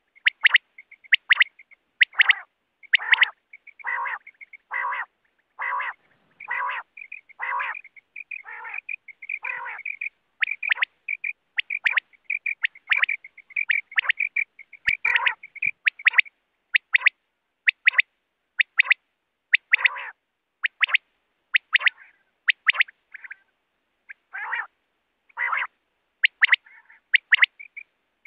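Coturnix quail calling in a steady run of short calls, roughly one or two a second. Sharp, high notes alternate with lower, hoarser nasal notes, and faint twittering carries on between them.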